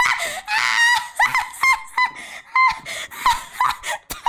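A woman laughing in a run of short, high-pitched giggles, several a second.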